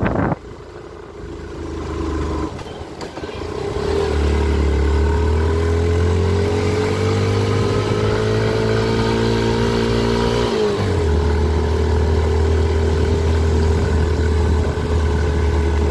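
Motorcycle engine heard from the rider's seat, building up and slowly rising in pitch from about four seconds in, then dropping suddenly at a gear change a little past ten seconds and running steadily after.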